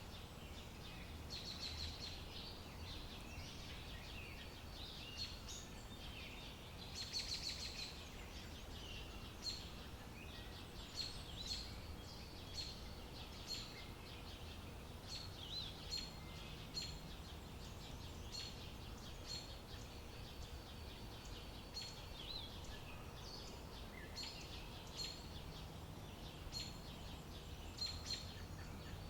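Small birds chirping: many short, high calls repeating every second or so, over a steady low rumble.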